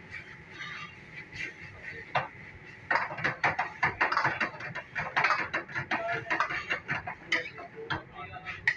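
Metal wok ladle clanking and scraping against a wok while stir-frying noodles. A few sharp knocks at first, then a quick, dense clatter of strikes from about three seconds in.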